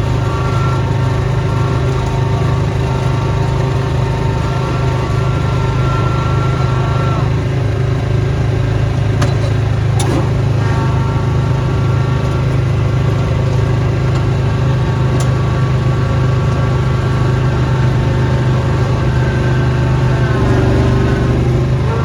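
Snowblower's small gasoline engine running steadily, with a higher mechanical whine over it that drops out for a few seconds partway through and then returns. There is a sharp click about ten seconds in.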